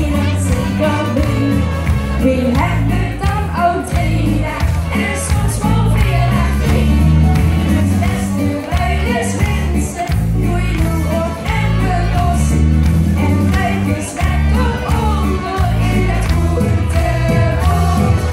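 Young female singers singing a Limburgish dialect song into microphones over amplified music with a steady bass beat.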